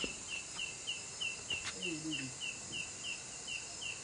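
A night insect chirping steadily, about four or five short chirps a second, over a faint steady hiss. A low voice murmurs briefly near the middle.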